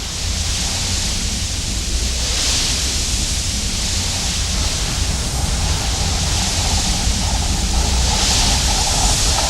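Science-fiction sound effect: a steady rushing hiss over a deep low rumble, with a faint droning hum that grows stronger about halfway through.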